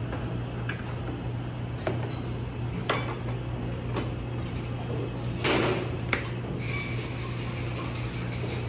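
Plates and utensils being handled on a table: a handful of scattered clinks and knocks, the loudest about five and a half seconds in, over a steady low hum.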